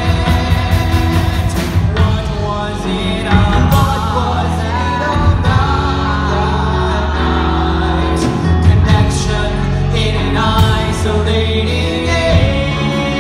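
Two men singing a rock duet live over a band with drums.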